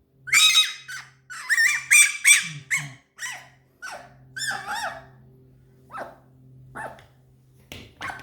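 Fennec fox making a string of high, squeaky chirping whines, the affectionate sounds of a pet being petted. A quick cluster of loud calls comes in the first three seconds, then single shorter calls about once a second, fainter toward the end.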